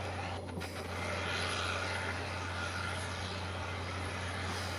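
Cat Challenger MT875C tracked tractor's Caterpillar C18 six-cylinder diesel running steadily under heavy load as it pulls a Keeble Brothers breaker through stubble: a constant low engine drone with a broad rush of noise over it.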